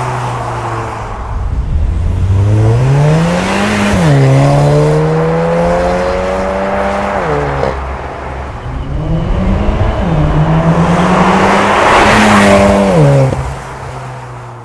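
Porsche Macan G2 with a Stone turbo-back exhaust (eddy catalytic downpipe and valved cat-back) accelerating through the gears. The exhaust note rises in pitch and drops sharply at each upshift, about four times, and fades near the end as the car pulls away.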